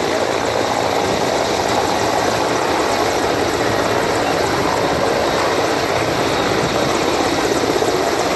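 Mil Mi-17 helicopter hovering low, its main rotor and twin turboshaft engines giving a loud, steady noise.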